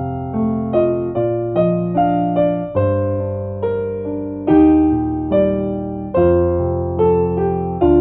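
Background music: a gentle electric piano playing chords and a melody at a steady, even pace.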